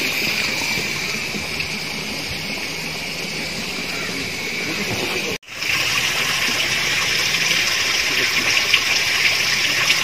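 Steady rush of running water, breaking off for a moment about five seconds in and then continuing a little louder.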